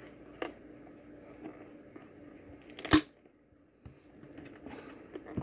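Handling noise from a plastic multimeter in its soft plastic holster: light rubbing and small knocks, with one sharp plastic click about three seconds in.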